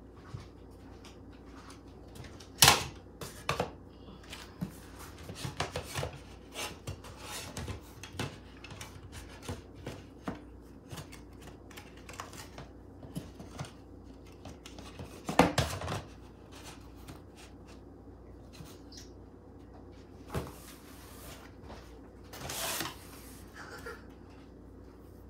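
Hard plastic toy handled and knocked about inside a cardboard box: a run of small clicks and taps, with two louder knocks, about three seconds in and about fifteen seconds in.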